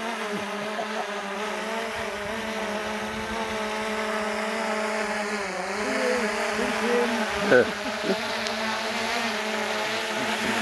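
Small camera drone's propellers humming steadily as it hovers close by being brought back in. The pitch wavers about six seconds in, with a brief louder sweep a moment later as it manoeuvres.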